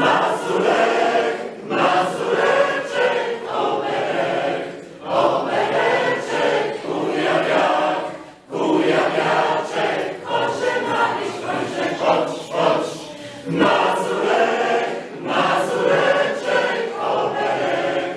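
Mixed choir of women's and men's voices singing a Polish folk song unaccompanied, phrase by phrase with short breaks between phrases.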